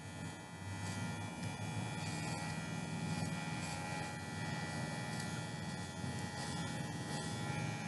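Small electric hair clipper buzzing steadily as it is run through a dog's long curly coat.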